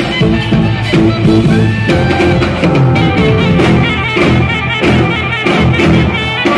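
Live jazz-fusion band playing loudly: saxophones and a trumpet play together over electric bass and drums.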